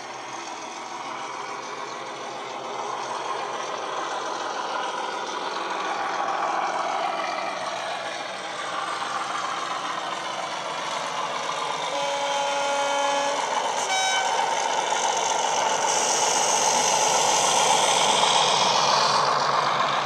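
Class 37 diesel locomotive sound from an ESU LokSound hifi DCC decoder, played through a model locomotive's small speaker: the English Electric engine running and getting steadily louder as the train approaches. About twelve seconds in the two-tone horn sounds, a longer low note followed by a short high note.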